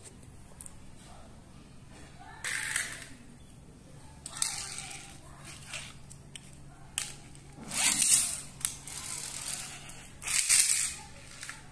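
Small die-cast toy trucks rolling across a hard tile floor, heard as four short whirring, scraping bursts. The last two are the loudest.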